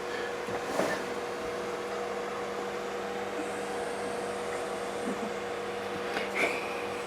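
Steady machine hum with an even hiss, holding two constant tones.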